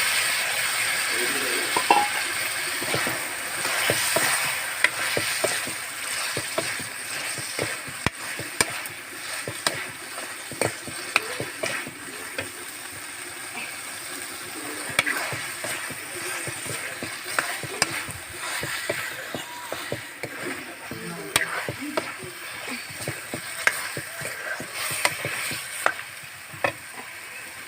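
Chicken frying in masala in a pan, sizzling, while a spatula stirs it with frequent irregular scrapes and clicks against the pan.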